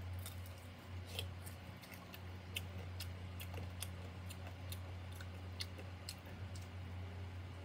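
Scattered small sharp clicks, irregular and about a dozen in all, over a steady low hum.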